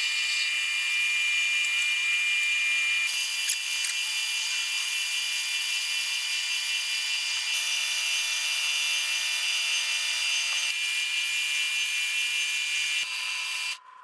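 A small high-speed electric power tool running steadily with a high whine, starting and stopping abruptly.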